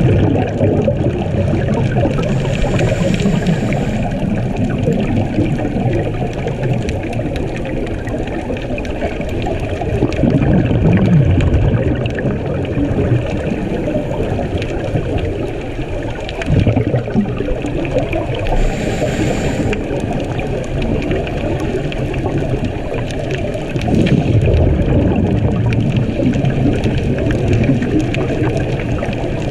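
Muffled underwater noise, with a scuba diver's regulator breathing: a short hiss of inhalation a few seconds in and again past halfway, and low bubbly rumbles of exhaled air in between.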